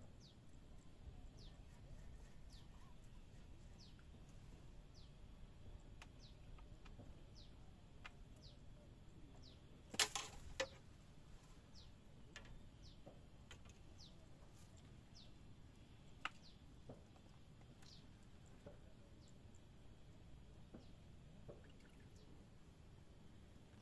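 Near silence outdoors, with a small bird repeating short, falling chirps every second or so. A quick cluster of sharp clicks about ten seconds in is the loudest sound, with one more click some six seconds later.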